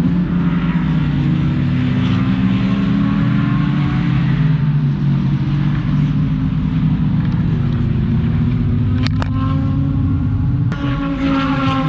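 GT race car engines running at speed along the track, their pitch rising and falling as the cars accelerate and shift. A few brief sharp clicks come near the end.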